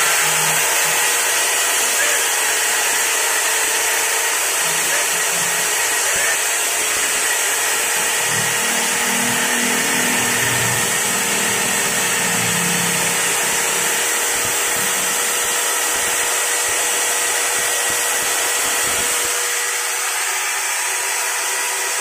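Maktec MT580 circular saw's universal brush motor running unloaded at full speed, a steady whine. This is the test run after a new armature and carbon brushes, and it runs normally with no heavy sparking at the brushes.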